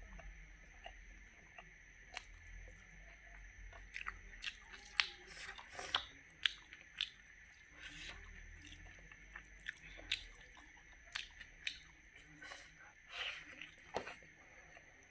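Close-up chewing of cooked wood larvae with rice, with sharp crunches and wet clicks of biting, thickest between about four and fourteen seconds.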